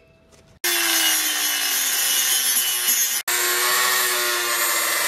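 Dremel rotary tool grinding off the head of a stripped caliper-bracket bolt. It starts about half a second in with a high whine that sags slightly in pitch under load, and breaks off for an instant about three seconds in.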